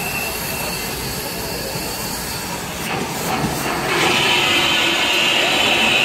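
Union Pacific Big Boy 4014 steam locomotive giving off a steady high hiss of steam. A few clicks come about three seconds in, and the hiss grows louder about a second later.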